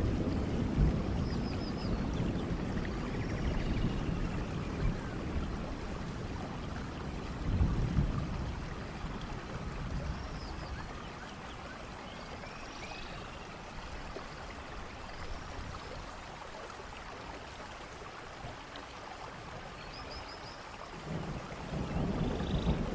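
Steady rain, with low thunder rumbles about eight seconds in and again near the end, and a few short high chirps now and then.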